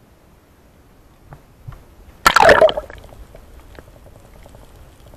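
A short, loud splash a little over two seconds in as the camera plunges into the sea, followed by the muffled underwater hush with faint scattered ticking and crackle.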